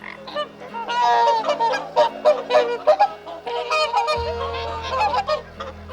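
Canada goose honking: a rapid series of repeated honks.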